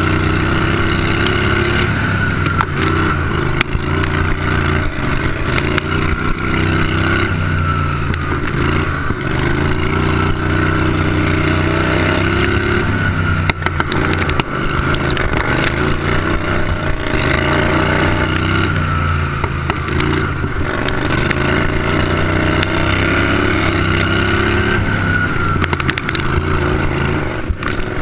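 A racing lawn tractor's 18 hp Briggs & Stratton Vanguard V-twin engine running hard, its pitch rising and falling several times as the throttle opens and eases through the turns. Clattering knocks from the chassis over the dirt run through it.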